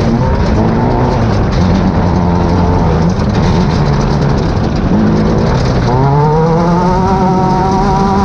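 Class 10 off-road race buggy engine running hard over noisy terrain, rising steadily in pitch as it accelerates from about six seconds in.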